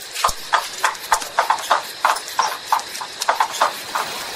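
A quick, fairly regular run of light knocks or clicks, about three to four a second, like hoofbeats, stopping just before the end.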